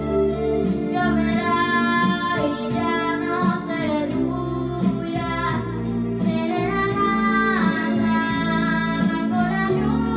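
A young girl singing a ballad with guitar accompaniment, her voice holding and bending long notes over steady chords.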